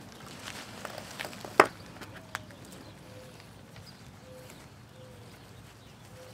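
A few knocks and scuffs from a brick, shoes and nylon cord being handled on concrete, with one sharp knock about a second and a half in. In the second half a faint short, low call repeats about once a second in the background.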